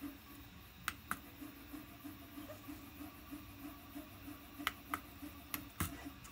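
Pushbutton keys on a DSKY replica keypad clicking as they are pressed and released: three pairs of sharp clicks, about a quarter second apart within each pair, the first near one second in and the other two near the end. A faint low hum pulses underneath about three times a second.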